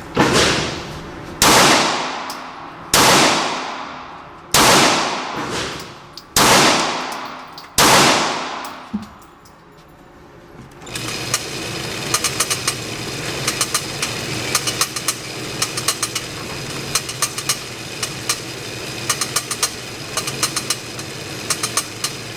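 Glock 26 Gen 4 9mm pistol fired six times in slow, deliberate succession, about a shot every second and a half, each shot ringing out with a long echo. After a pause of a few seconds comes a steady hiss with many faint clicks.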